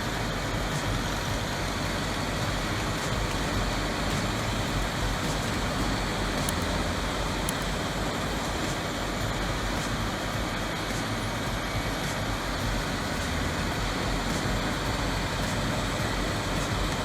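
Large industrial wood grinder running steadily: a continuous, even machine noise that holds at one level, with no clear revving or change in load.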